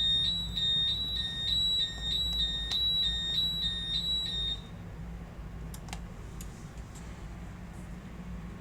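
Zytec fire alarm system sounding a high-pitched electronic alarm tone, broken by short gaps about three times a second, which cuts off suddenly about four and a half seconds in as the alarm is silenced during a test. A couple of faint clicks follow.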